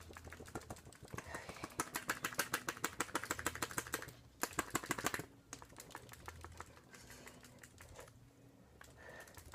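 An Instax Mini instant photo print being shaken quickly in the hand, flapping in a rapid run of light clicks for a few seconds, then only faintly near the end.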